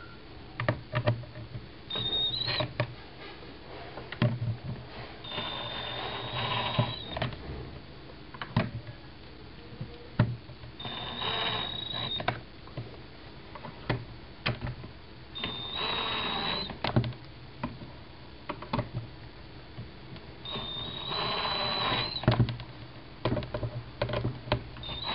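Cordless drill/driver driving screws, its motor whining in four short runs of about one and a half to two seconds each. Each run stops as the screw snugs up. Between the runs come small clicks and knocks of the driver and screws being handled.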